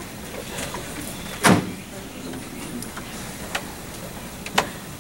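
Handling knocks at a wooden pulpit: one sharp knock about a second and a half in, then two fainter clicks near the end, over a steady room hiss.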